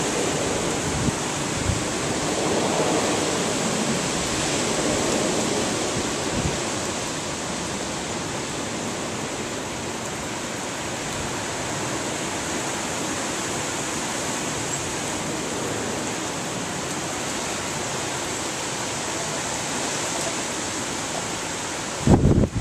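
Steady rain and wind of a hurricane, a continuous even hiss, with gusts buffeting the microphone now and then and hardest near the end.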